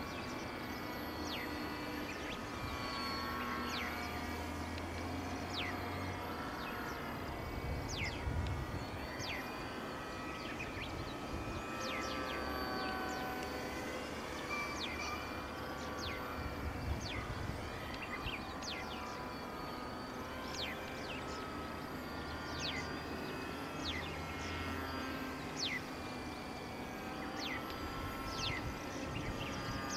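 Background music of sustained notes changing pitch in steps over a low bass line, with short high chirps throughout.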